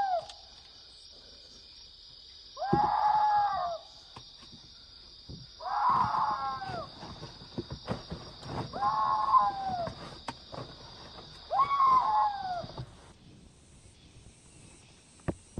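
An animal call repeated four times about three seconds apart, each about a second long and ending in a falling slide, over a steady high insect drone that stops near the end.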